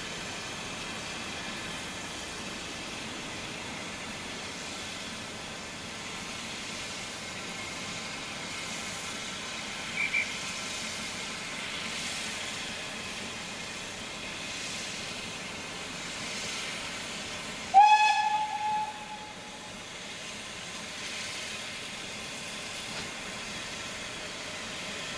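Steam locomotive hauling a train towards the listener with a steady hiss of steam, then a short blast on its steam whistle about eighteen seconds in, the loudest sound, rising in pitch as it opens. Two short high pips sound about ten seconds in.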